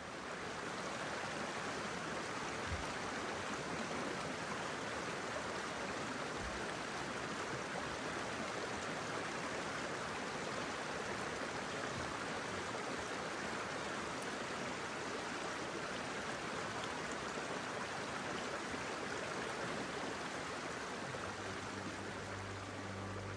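Steady rushing of running stream water. Soft music with sustained tones comes in near the end.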